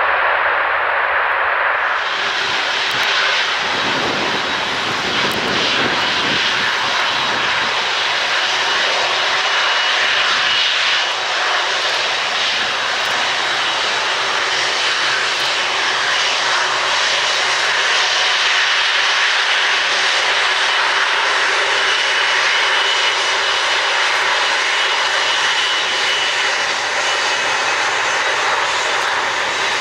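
Jet engines of a large airliner running steadily, a continuous rushing noise with a faint high whine. The sound turns suddenly brighter about two seconds in.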